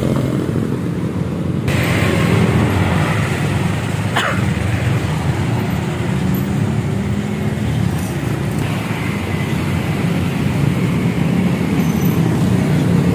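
A motorcycle engine idling steadily, with a brief falling whistle about four seconds in.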